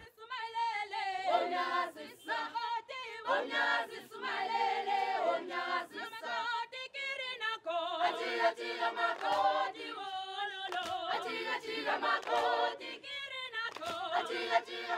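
An a cappella choir singing in close harmony, several unaccompanied voices with wavering, sustained notes.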